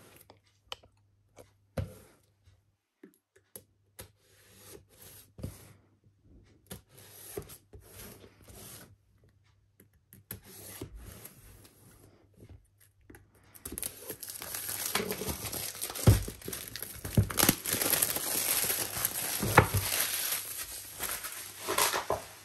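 The seal on the back of a cardboard product box being cut open: scattered small scrapes and clicks, then, a little past halfway, a long stretch of tearing and crinkling with a few louder rips.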